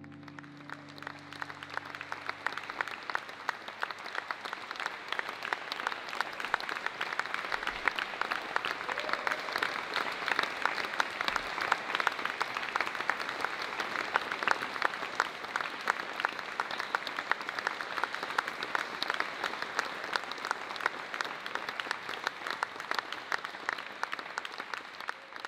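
An audience applauding: many hands clapping together, building over the first couple of seconds and then holding steady.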